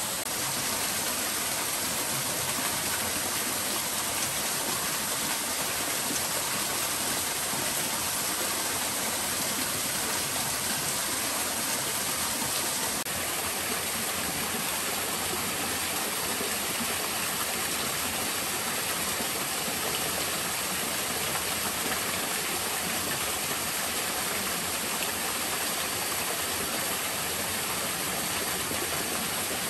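Small waterfall and creek water rushing steadily over boulders into a rocky pool.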